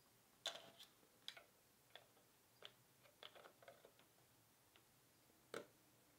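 Faint, irregular clicks and taps of hard statue parts being handled and fitted together on a 1/6 scale diorama statue. Two sharper knocks stand out, about half a second in and near the end.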